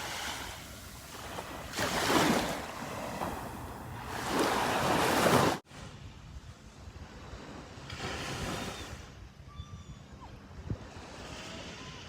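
Sea waves breaking and washing up on a beach: two loud surges swell and fade in the first half. It then cuts off abruptly to a quieter stretch of surf with some wind.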